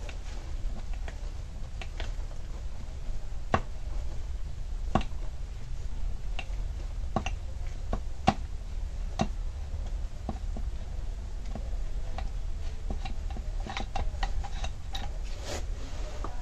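Irregular sharp clicks and light knocks of the chainsaw's plastic starter cover and a small metal tool being handled as the cover is worked loose. The clicks come faster near the end, over a steady low hum.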